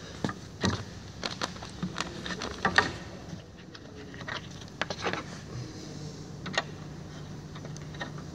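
Light clicks and knocks of hands handling a wall bed's steel frame plate and wooden slats, clustered in the first three seconds with a few more around the middle, over a steady low hum.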